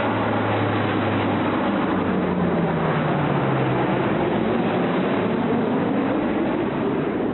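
Lockheed C-130 Hercules four-engine turboprop flying a low pass, its engines and propellers giving a loud, steady drone. A tone in the drone falls in pitch about two seconds in, and a higher one rises toward the end.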